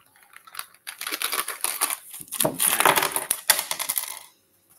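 Rapid crackling rustle of a diamond painting toolkit pouch being opened and its contents pulled out by hand. It builds from about a second in and stops shortly before the end.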